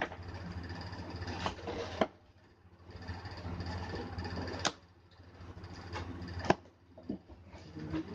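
Handling noise from the drone's box and parts. Three sharp clicks or knocks, about two seconds apart, over a steady hiss and low hum that drops away twice.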